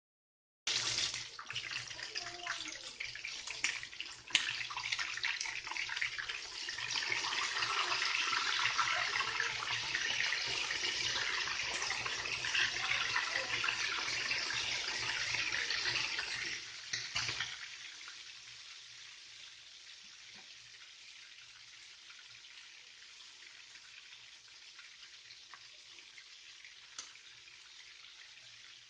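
Water running hard from a kitchen tap into a sink. It starts suddenly and cuts back sharply about two-thirds of the way through, leaving a much fainter steady trickle with a few small ticks.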